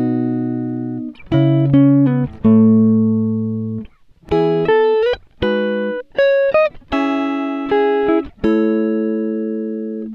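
Background music: a guitar plays a slow run of chords and single notes, each struck and left to ring out and fade, with a few short sliding notes between them.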